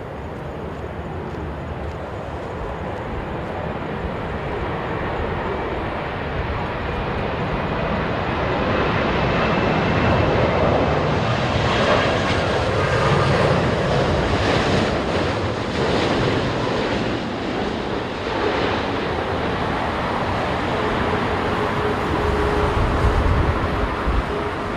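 Jet engines of a Boeing 787 airliner on landing approach, a steady jet noise that swells as the plane passes, loudest around the middle. It eases off, then a low rumble rises near the end.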